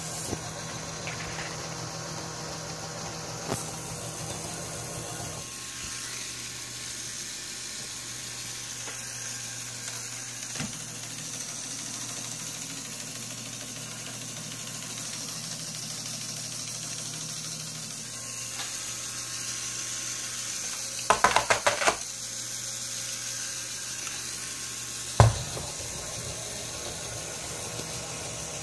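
Small LEGO electric motor running steadily with a whirring hum, driving the gear train and crank of a LEGO Technic jigsaw model so that its blade moves up and down; the hum drops lower about five seconds in. About three quarters of the way through comes a quick burst of rattling knocks, the loudest sound, and a few seconds later a single sharp knock.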